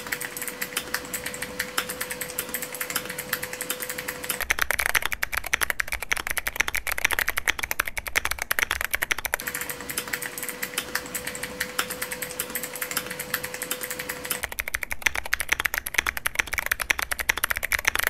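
Fast, continuous typing on a clicky-switch Keychron Q1 mechanical keyboard: a rapid, unbroken stream of sharp clicks.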